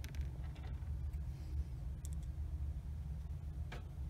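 A few faint, light clicks and taps of the perforated metal cover being handled and fitted back onto the receiver chassis, over a steady low hum.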